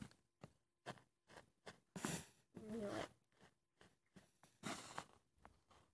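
Faint, scattered scrapes and rustles of a hand brushing spilled glitter sand across a cloth, in short separate strokes, the longest near the middle.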